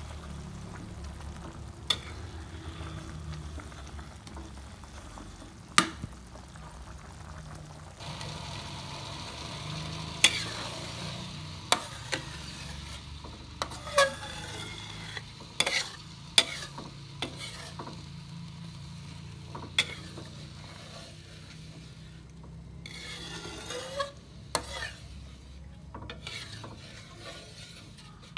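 A metal spatula stirs thick coconut-milk curry in a large aluminium pan, giving about a dozen sharp, irregular clanks against the pan over a steady low rumble.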